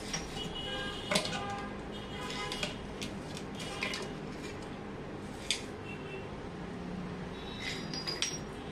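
Metal tools clinking and knocking against a stainless steel floor drain as it is prised up out of the tiled floor with a screwdriver and hammer. Scattered sharp metallic clinks, the loudest about a second in and a quick cluster near the end.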